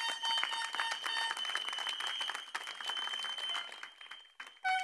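Crowd applauding, a dense patter of many hands clapping that thins out and fades after about four seconds.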